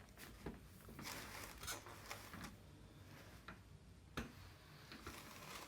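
Faint rustling and shifting of a patient and clothing on a chiropractic treatment table, with one sharp click about four seconds in.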